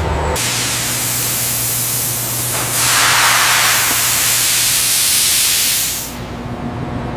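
A steady, loud hiss like spraying air or steam over a low, steady machine hum. The hiss grows louder about three seconds in and falls away about six seconds in.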